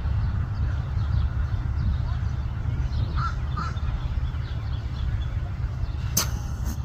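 A few faint bird calls about three seconds in over a steady low rumble, with a brief rustling noise near the end.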